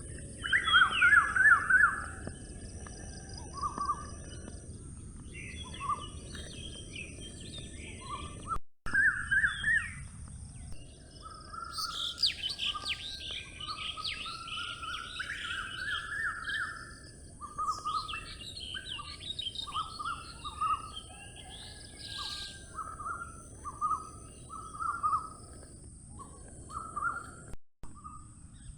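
Several forest birds chirping and singing, with short repeated phrases throughout and bursts of faster, higher chattering in the middle, over a steady low background rush.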